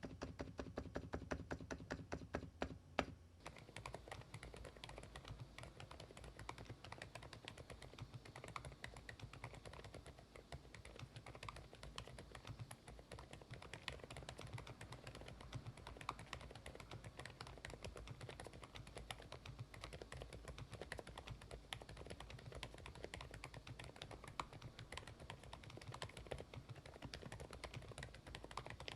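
Faint typing on low-noise mechanical keyboards. For about the first three seconds there is a fast, even run of soft key presses on a Thinkway Toche F101 with Indigo Naturalis silent switches. After that comes continuous quiet typing on a Thinkway Toche F101 with Poached Egg switches.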